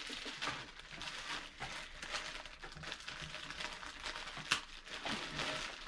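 Clear plastic bag crinkling and rustling as it is handled, with one sharper crackle about four and a half seconds in.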